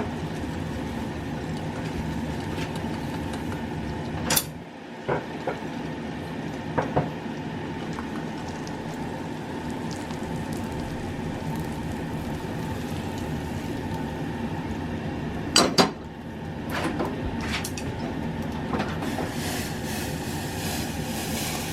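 Kitchenware being handled over a steady background hum: a few sharp clinks and knocks of dishes and utensils, the loudest about two-thirds of the way through, then several lighter clinks.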